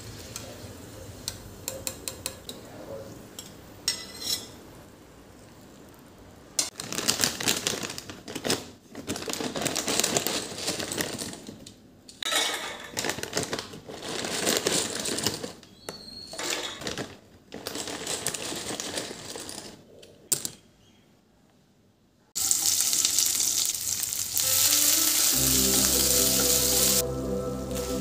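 Food frying in hot oil, sizzling in stretches that stop and start, with a few light clicks of a metal spatula against the pan. Near the end there is a loud steady sizzle, and then background music with a steady beat comes in.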